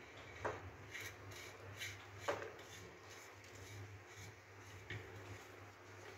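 Faint metal clicks and short scrapes, a few of them sharper, as a small valve is fitted and turned by hand on the end of a hand grease pump's steel pipe, over a steady low hum.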